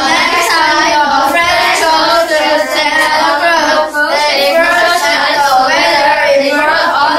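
A small group of boys singing together.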